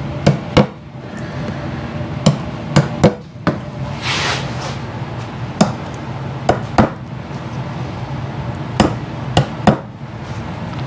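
Claw hammer tapping nails through a beaver pelt into a wooden stretching board: about a dozen sharp strikes, coming in twos and threes. A steady low hum runs underneath.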